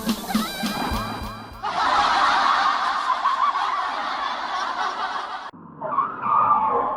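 A cartoon character's laugh sound effect played as a string of edited variations: a pitched, warbling version at first, then a harsh, noisy one from about two seconds in, and a shorter muffled one near the end.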